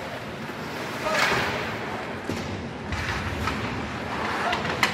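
Game sounds of a hockey match in play in an arena: a scraping rush about a second in, scattered knocks, and one sharp crack just before the end, with faint voices of players and spectators.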